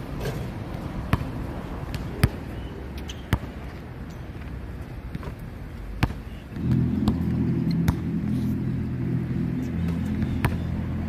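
Basketball bouncing on a hard outdoor court, a string of sharp separate bounces, the first few about a second apart. About two-thirds of the way in, the low, steady running of a motor vehicle's engine comes in and becomes the loudest sound.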